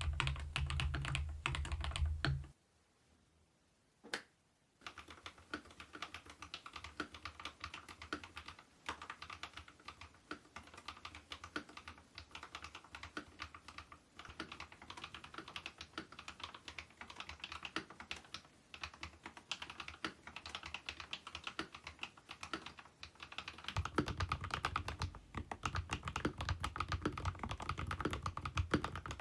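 Kemove K87 1980 mechanical keyboard being typed on, a fast run of key clicks. The typing breaks off about two seconds in for a near-silent pause with a single click, then resumes and runs on steadily.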